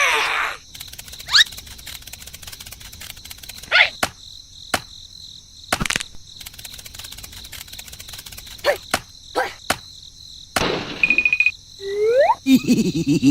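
Crickets chirping in a steady, high, rapid trill, broken by several short sliding-pitch sounds and a few sharp clicks.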